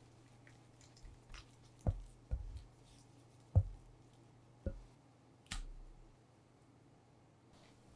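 A silicone spatula mixing softened cream cheese in a glass bowl: soft squishing with about five separate dull knocks of the spatula against the bowl.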